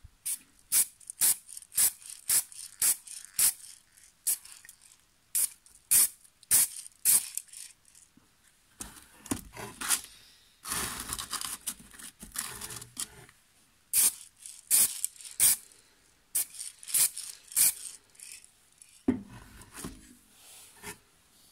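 Spray can of white paint hissing in many short bursts, with one longer spray about eleven seconds in, as the masked model car body is given a second white coat.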